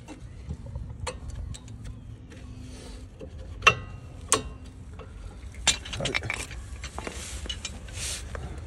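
Metal tools and brake parts clinking and tapping during a brake pad change. Scattered light clicks, then two sharp metallic clinks with brief ringing about a second apart near the middle, and a rush of hissing noise near the end.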